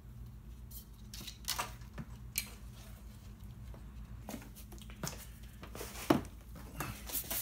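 Hands and tools handling the truck's front radiator support, with a few short knocks and rustles, then near the end a couple of brief squirts from a spray bottle of cleaner. A steady low hum runs underneath.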